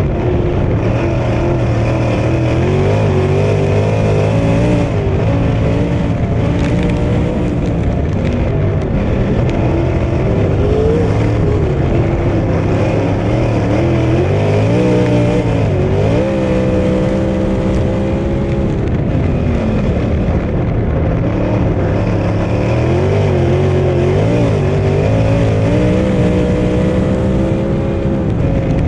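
Onboard sound of a dirt-track sprint car's V8 engine at racing speed. Its pitch drops and climbs again every several seconds as the driver lifts for the turns and gets back on the throttle down the straights.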